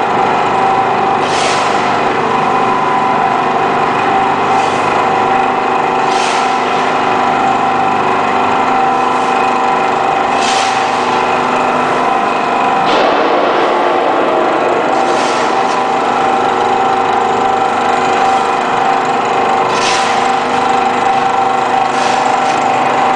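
Y81-130 hydraulic metal baling press with its power unit running steadily, a constant hum with a high whine. Brief scraping rasps come every few seconds as a steel shovel scoops metal turnings and tips them into the press box.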